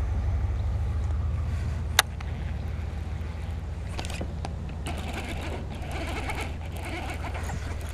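Low, steady hum of a fishing boat's electric trolling motor running. A sharp click comes about two seconds in, after which the motor runs a little quieter.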